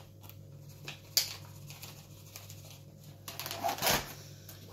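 Corn flour and yoghurt mixture being worked in a bowl: quiet handling noises, a sharp tap about a second in, and a louder burst of noise near the end.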